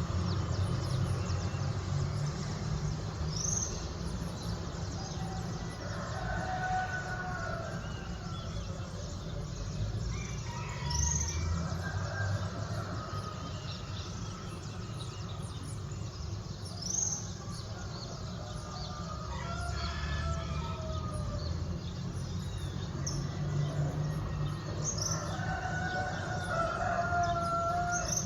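A rooster crowing several times, alongside a bird repeating a short high chirp about every few seconds, over a steady low rumble of city traffic.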